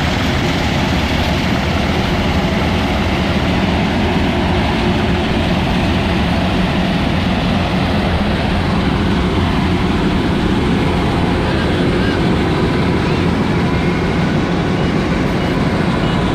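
An engine running steadily at an even speed, loud and unchanging throughout.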